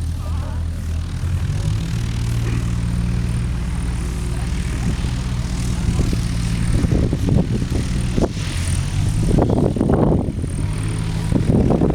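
Light aircraft's propeller engine running steadily close by. Its pitch steps up about a second and a half in.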